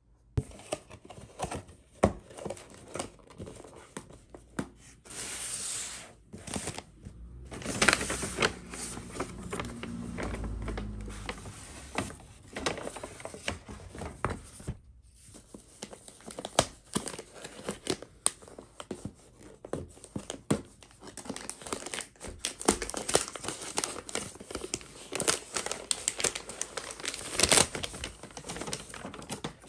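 Paper wrapping and a cardboard box being handled and unwrapped by hand: paper crinkling and rustling, with short tearing sounds and light clicks and taps throughout.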